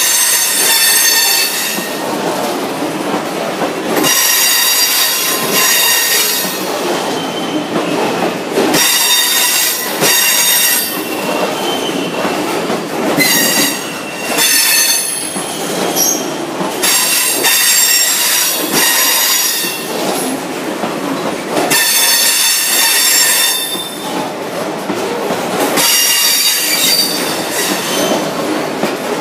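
A long freight train of loaded EWS hopper wagons running past at speed, with rumbling and clattering wheels. High-pitched wheel squeal comes in spells of a second or two about every four seconds.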